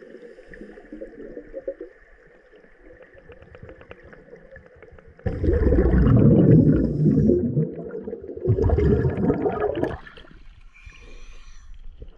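Water bubbling and rushing against an underwater camera, in two loud surges about five and eight and a half seconds in, after a fainter gurgle.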